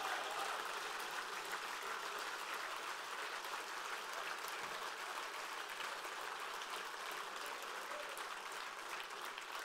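Audience applauding in a large hall, a steady spatter of many hands clapping that slowly dies away toward the end.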